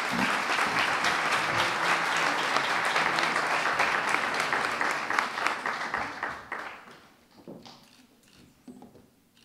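Audience applause, a dense patter of many hands clapping, steady for about six seconds and then dying away.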